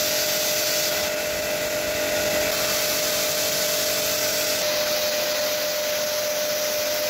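Electric high-pressure washer running and spraying: a steady motor tone under the loud hiss of the water jet from its adjustable nozzle.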